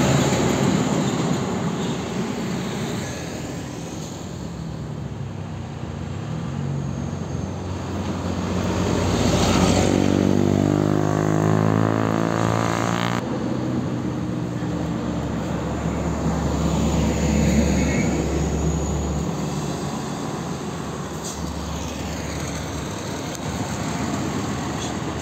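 Heavy diesel trucks passing close one after another on an uphill road, their engines pulling under load. The sound swells and fades with each pass, loudest near the start, around ten seconds in and around seventeen seconds in.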